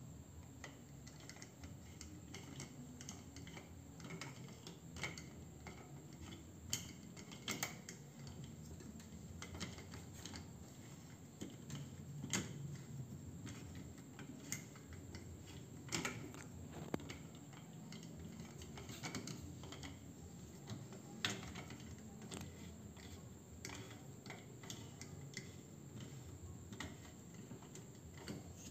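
Scattered light clicks and taps, at irregular intervals, of a stainless steel wire sink basket and its plastic clamp being handled and fitted around a faucet's neck.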